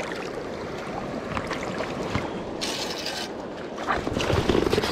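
Shallow river current rushing and splashing around a wading angler's legs, with the water sloshing as he moves.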